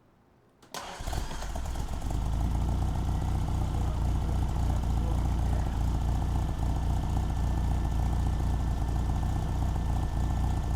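1964 Triumph TR4's four-cylinder engine idling steadily and low, around 800 rpm, with a slight gallop in its rhythm that the owner puts down either to the non-factory cam or to one of the twin carburettors being slightly off. The engine sound comes in abruptly about a second in.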